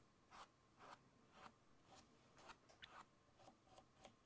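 Faint, quick strokes of a paintbrush on canvas, about two or three a second, as white and blue acrylic paint is brushed on.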